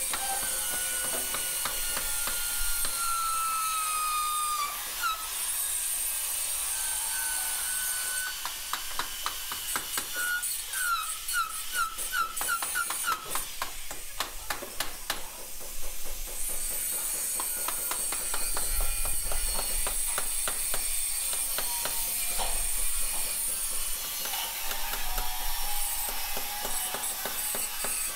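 Angle grinder cutting stone wall-cladding tiles to a 45-degree mitre, running in two long spells with a break in the middle.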